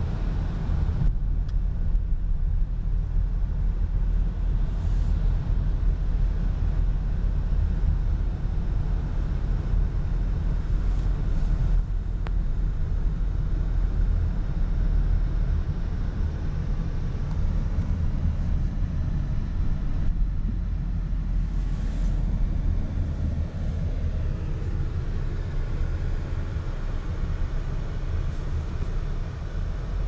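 Steady low rumble of road and engine noise heard inside a moving car's cabin, with tyres running on a wet, slushy motorway. In the second half the engine note shifts up and down in pitch.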